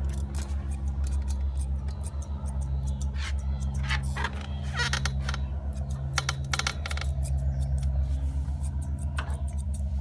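Grooming scissors snipping through a Newfoundland dog's long foot hair in short runs of crisp clicks, most of them in the middle of the stretch, over a steady low hum.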